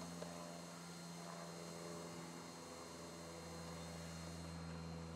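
A steady low electrical hum with a few faint higher tones above it.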